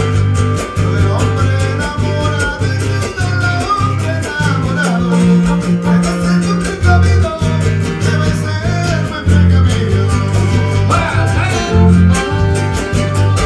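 Live huapango dance music played loud by a string band: guitars and violin over a steady, pulsing bass.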